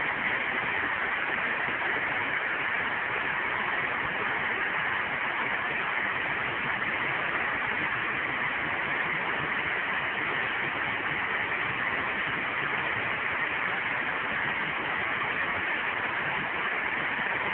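Steady rush of river water pouring over low rock ledges in shallow rapids, an even hiss with no breaks.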